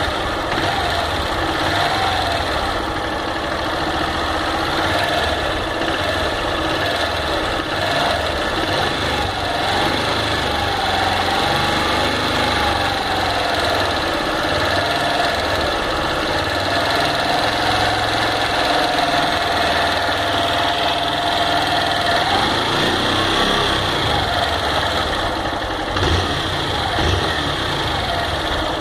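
Honda CG 160 Fan motorcycle's air-cooled single-cylinder four-stroke engine running steadily, with an abnormal engine noise ("barulho no motor") that the owner is showing as a fault.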